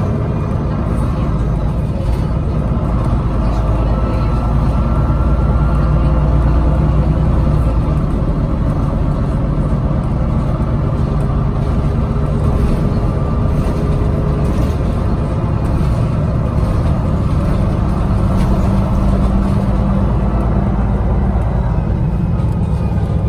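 MAN NG363 Lion's City articulated city bus with a Voith automatic gearbox, its engine and drivetrain running under way, heard from inside the passenger cabin. The low running noise is steady and rises slightly a few seconds in, with a faint whine above it.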